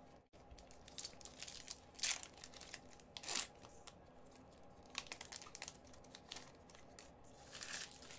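Hockey trading cards being leafed through in gloved hands: faint papery swishes and clicks of card sliding against card, with a few louder swipes.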